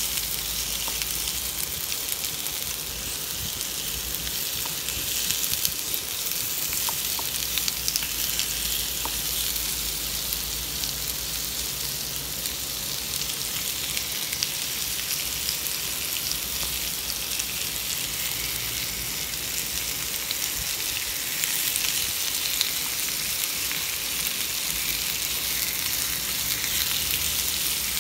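Chicken breast pieces frying in hot avocado oil in a non-stick pan: a steady sizzle with many small pops and crackles as the pieces are stirred.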